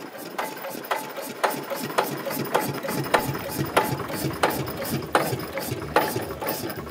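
A machine running with a low rumble and a sharp, regular clack about twice a second; the clacks come slightly further apart as it goes on.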